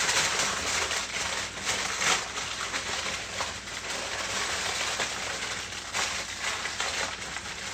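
Aluminium foil crinkling and rustling with irregular crackles as it is folded by hand around a pork loin.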